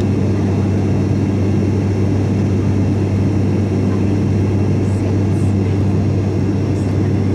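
Steady drone of an ATR 72's turboprop engines and propellers heard inside the passenger cabin: a deep, even hum under a wash of engine and airflow noise.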